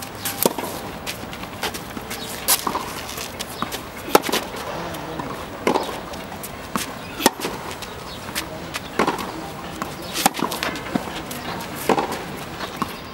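Tennis ball hit back and forth in a baseline rally: a sharp pock of racket strings on the ball about every one and a half to two seconds, some hits loud and some fainter.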